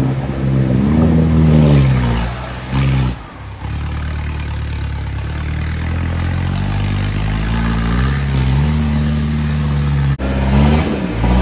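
Off-road 4x4's engine revving hard, its pitch rising and falling. It briefly drops off about three seconds in, then holds a high, steady rev for several seconds.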